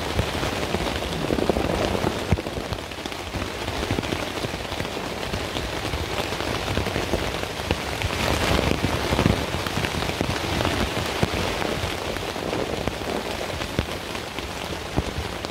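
Heavy rain coming down hard on the Naturehike Opalus 2 tent, heard from inside: a dense, steady patter of drops striking the fabric, louder for a moment about eight seconds in.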